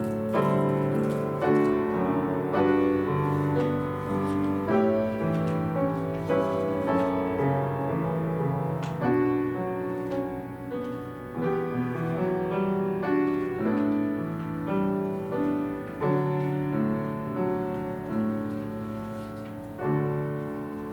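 Piano playing a slow, chordal hymn-like piece, each chord struck and then dying away, growing softer near the end.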